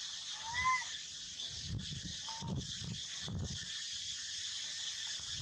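A steady drone of insects, with a short clear chirping call a little under a second in and a fainter one about two seconds in. A few dull low thumps fall in the middle.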